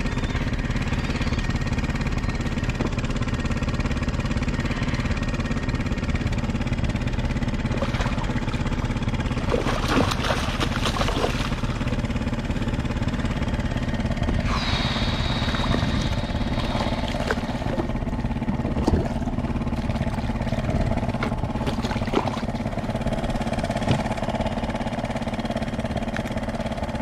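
A hooked schoolie striped bass splashing and thrashing at the surface beside a kayak, loudest about ten seconds in and again about halfway through, over a steady engine drone.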